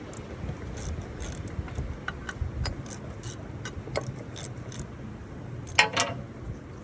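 Metal tools or parts clinking and ticking as they are handled, with one loud ringing metallic clank about six seconds in, over a steady low rumble.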